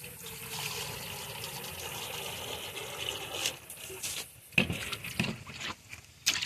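Water pouring into a stainless steel pan to make rinsing water for fish fillets, a steady trickle for about three and a half seconds. Then a few sharp knocks, the loudest about four and a half seconds in.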